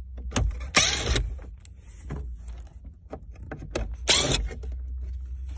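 Cordless DeWalt drill-driver spinning out screws: two short whirring bursts, one about a second in and one about four seconds in.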